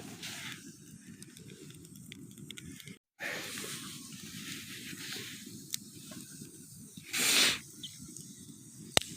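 Campfire burning with a steady low crackle and hiss, scattered small pops, a louder hiss about seven seconds in and one sharp pop near the end; the wood is local wood the owner suspects is damp. The sound cuts out briefly about three seconds in.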